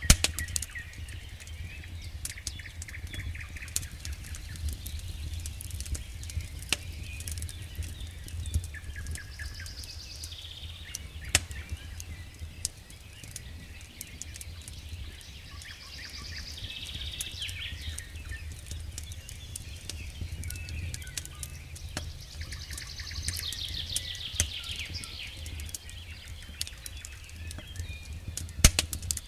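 Wood campfire crackling, with sharp pops now and then over a steady low rumble. Birds chirp and trill in the background in several bursts.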